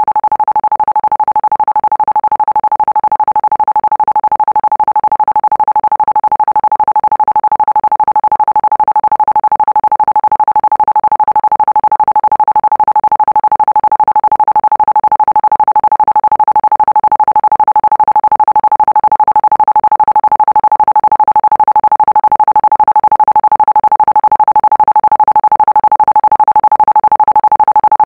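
Isochronic tone for brainwave entrainment: one steady electronic tone a little under 1 kHz, pulsing on and off rapidly and evenly, slowly growing louder.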